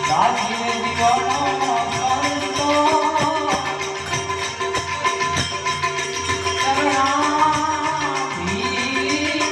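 Gujarati santvani devotional folk music: steady held drone tones under a regular jingling percussion beat, with an ornamented melody line that slides up and down and swells twice.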